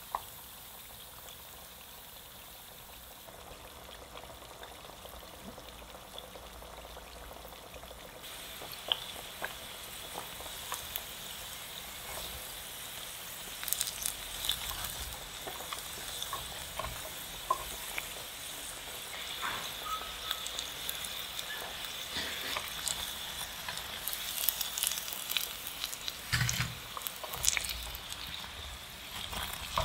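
Breaded chicken nuggets deep-frying in hot oil: a steady sizzle with crackles and pops that grow busier from about eight seconds in, as the breadcrumb coating browns. There are occasional clicks and a few low knocks near the end.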